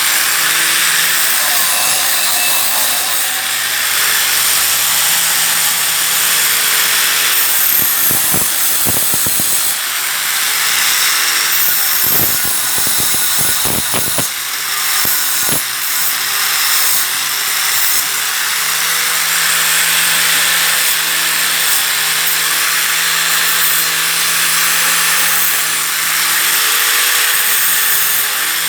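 Angle grinder running and grinding continuously: a dense, steady hiss of the disc over a steady motor hum. The grinding is broken by a cluster of knocks about eight seconds in and again from about twelve to sixteen seconds.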